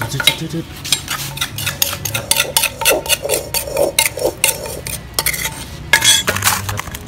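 Spoon scraping and tapping against a mortar while scooping out pounded spice paste: a quick, irregular run of scrapes and clicks, loudest about six seconds in.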